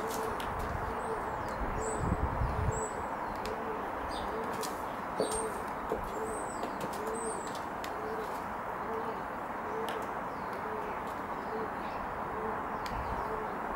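A dove cooing, a steady run of short low notes about two a second, with small birds chirping high above it. A few sharp clicks of stiletto heels on paving stones.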